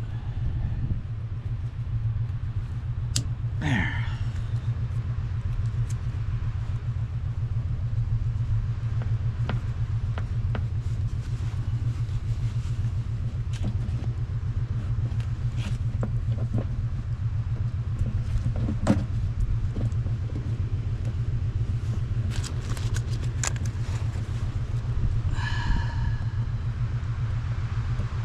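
An engine running steadily with a low, even rumble. Scattered clicks and knocks of handling sit over it, and two brief higher-pitched sounds come about 4 seconds and 25 seconds in.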